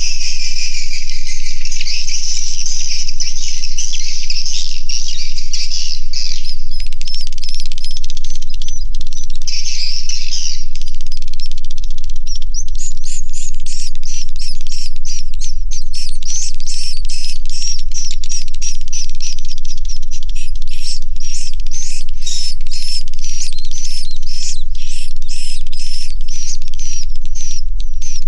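A flock of swiftlets twittering inside a swiftlet house: a dense, continuous chattering chorus that about halfway through turns into rapid, separate repeated chirps, two to three a second. A low steady hum runs underneath.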